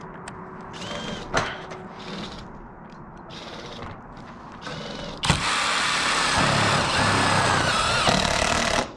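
Cordless impact driver driving a farmer screw into sheet-steel roof flashing. It gives a couple of brief spins in the first five seconds, then runs loudly for about three and a half seconds from a little past five seconds in, stopping just before the end.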